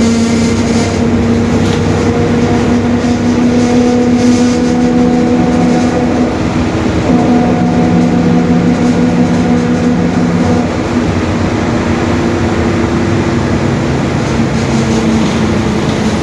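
Mercedes-Benz OF-1721 Bluetec 5 city bus under way: the drivetrain's running noise with a steady tonal drone from the differential, its pitch shifting a couple of times, about six and again about eleven seconds in.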